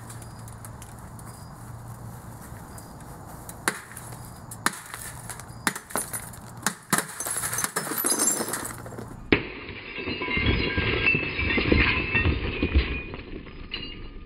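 An RCA CRT television's broken glass screen being struck again and again with a pitchfork. Sharp knocks with glass cracking and tinkling come about a second apart from about four seconds in. In the second half comes a longer stretch of crunching, shattering glass with heavy thumps.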